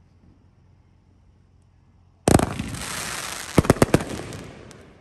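Aerial fireworks bursting: faint for about two seconds, then a sudden loud burst that carries on and slowly fades. About a second and a half later comes a quick run of about five sharp bangs, and one more bang at the very end.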